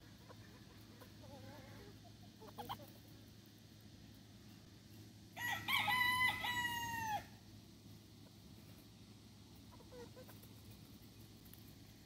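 Gamefowl rooster crowing once, a crow of about two seconds a little past halfway through, with a few soft clucks a few seconds before it.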